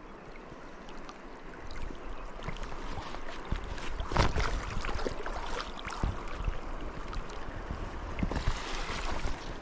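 Water of a shallow, rocky river splashing and rippling close to the microphone. It grows louder after the first couple of seconds, with irregular small knocks and splashes through it.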